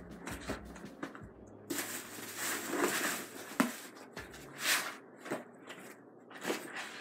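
Intermittent rustling and a few soft knocks of a fabric backpack and shopping bags being handled on a bed.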